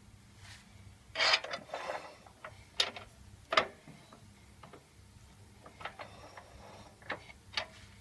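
Metal clunks, scrapes and clicks as a wood lathe's tool rest is slid into place and clamped, a scraping cluster about a second in followed by single sharp knocks spread through the rest, over a faint steady hum.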